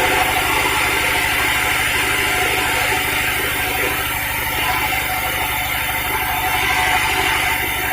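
Sawmill machinery running steadily: an engine's rapid, even firing pulse underneath a steady higher-pitched noise.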